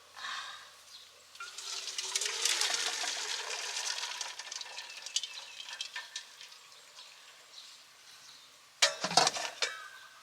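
Liquid dye being poured onto a cloth, a splashing trickle for a few seconds that tails off. A few sharp knocks follow near the end.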